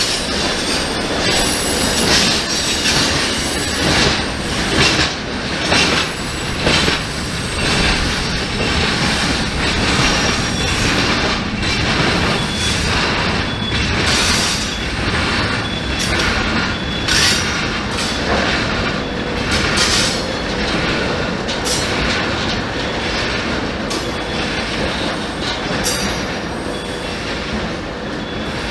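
Freight train wagons rolling steadily past at speed: flat wagons carrying tank containers, and open wagons. Continuous wheel-on-rail rumble with repeated clacks as wheels cross the rail joints, and a faint high wheel squeal.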